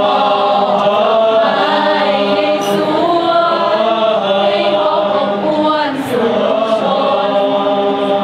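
Choir of Thai police non-commissioned officer cadets singing in harmony, holding long sustained notes that shift in pitch, with a brief break about six seconds in.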